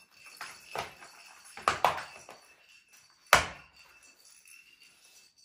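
Hard plastic track pieces of a Catit Senses 2.0 cat play circuit clicking and knocking as they are handled and pressed into place. A few light clicks, two louder knocks close together near two seconds in, and the loudest sharp knock a little after three seconds in.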